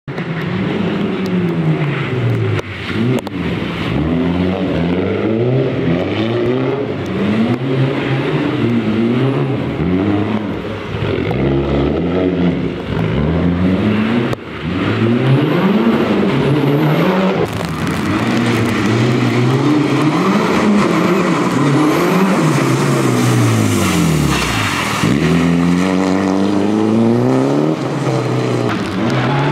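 Mitsubishi Lancer Evo VI rally car's turbocharged four-cylinder engine revving hard, its pitch climbing and dropping again and again as it accelerates through the gears and lifts off. About three-quarters of the way through, the revs fall very low before climbing again.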